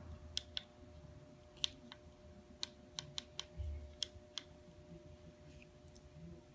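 About ten faint, sharp clicks at irregular intervals over a steady low hum, with a soft thump near the middle.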